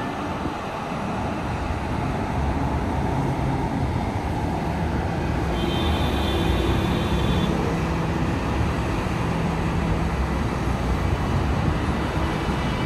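Dense highway traffic passing: a continuous rush of tyres and engines from many cars, growing a little louder over the first couple of seconds.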